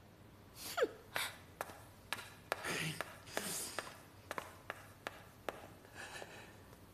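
Footsteps on a wooden staircase: a string of light, sharp knocks about every half second, with a brief falling voice sound near the start.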